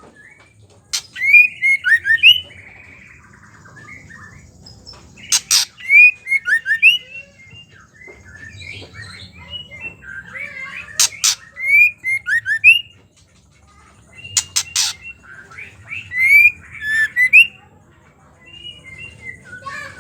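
Female white-rumped shama calling: sharp, harsh call notes and short chirping phrases in bursts every few seconds, the chattering "ketrekan" call that keepers use to stir male shamas into song.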